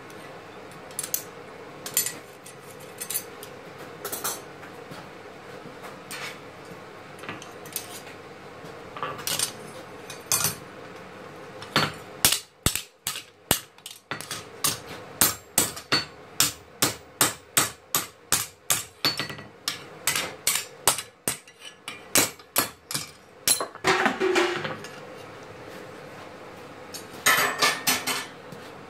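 Hammer blows on a steel anvil, forging metal for a knife. A few scattered strikes come first, then a steady run of blows about two a second for some ten seconds, then two quick flurries of strikes near the end.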